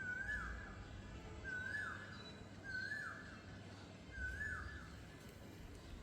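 A bird calling over and over: four matching short calls, each rising and then dropping away, about one every second and a half, over a steady low outdoor background.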